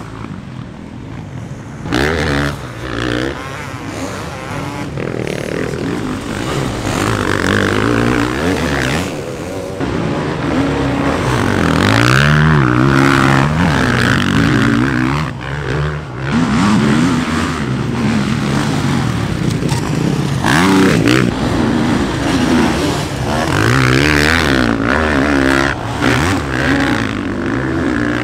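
Beta 450 four-stroke motocross bike ridden hard on a dirt track: the engine revs up and drops off again and again as the throttle is opened and closed and the gears go up. The loudness jumps suddenly a few times, most sharply about two seconds in.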